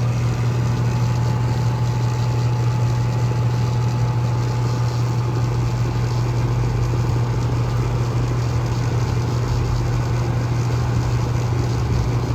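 American Standard Allegiance 14 central air conditioner's outdoor unit running: a steady low hum over an even rushing noise.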